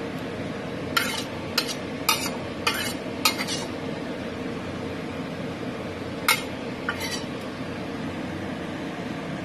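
Metal spatula scraping and clinking against a wok as the stir-fried vegetables are scooped out: five quick strokes in the first few seconds, then two more a little after halfway, over a steady background noise.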